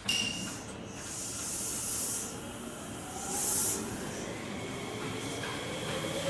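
Odakyu commuter electric train at a platform: two bursts of compressed-air hiss, then the motors' whine beginning to rise as the train starts to pull away near the end.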